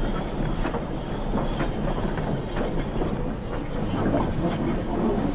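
Dapol model B4 tank steam engine running slowly along the track, its digital sound effects giving a steady train of soft steam chuffs, about two to three a second, over the running noise.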